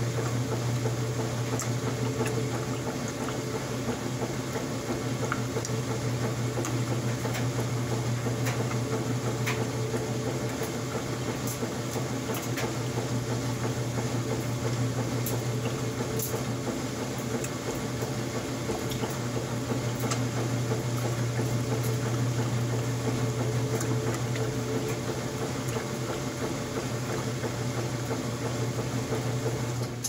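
Old top-load washing machine agitating during an empty rinse cycle. A steady motor hum runs under water sloshing and churning in the tub.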